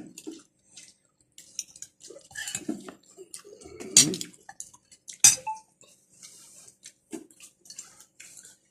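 Mealtime eating sounds: utensils and hands clinking and tapping against plates, with two sharper clinks about four and five seconds in, between softer chewing and mouth noises.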